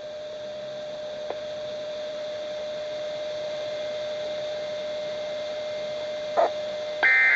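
NOAA Weather Radio broadcast between segments: a steady mid-pitched tone over faint hiss. Near the end come a short beep and then a louder touch-tone (DTMF) control tone as the automated broadcast switches back to its regular program.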